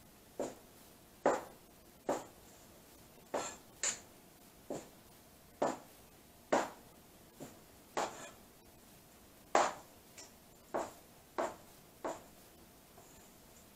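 Knife chopping salmon fillet into cubes on a plastic cutting board: about fifteen sharp knocks of the blade hitting the board, roughly one a second at an uneven pace, stopping near the end.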